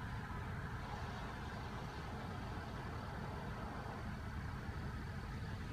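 A parked car's engine idling: a steady low hum with no change in pitch.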